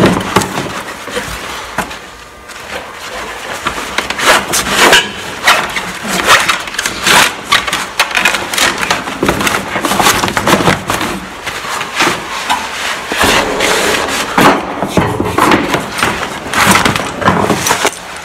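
Rubber hydraulic hose being pulled and uncoiled across a concrete floor, its metal end fittings knocking and scraping: a continuous irregular clatter and rustle of handling noise.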